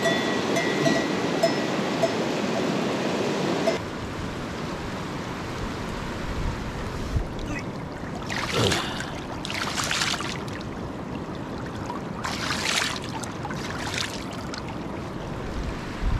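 Shallow stream running over stones, a steady rush of water, with a hand dipping and splashing in it in two short spells, about eight to ten seconds in and again around twelve to fourteen seconds. The first few seconds hold a louder, rougher rushing noise that cuts off abruptly about four seconds in.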